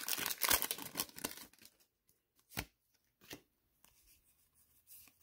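Foil Pokémon booster pack wrapper crinkling and tearing as it is pulled open, for about the first second and a half. Then a few soft taps as the cards are taken out and handled.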